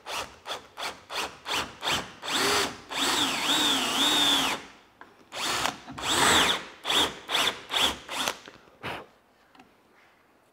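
Cordless drill with a tapered combination countersink and counterbore bit boring a screw hole into a wooden toe rail. The motor is run in quick trigger blips, then in two longer runs whose pitch dips and recovers as the bit loads in the wood, then in more short blips.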